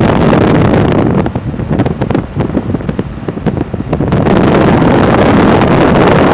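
Wind buffeting the microphone, loud and rumbling. It eases for about three seconds starting about a second in, then comes back full.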